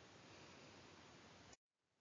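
Near silence: faint steady hiss of room tone, dropping out to dead silence for a moment about one and a half seconds in.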